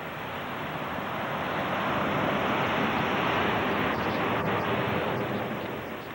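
Ocean surf rushing, swelling over a couple of seconds and then fading again.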